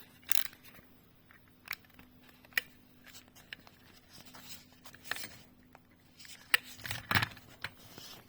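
Scattered short clicks and snips of a power adapter cable's outer jacket being cut open, a few of them bunched together near the end, over a faint steady hum.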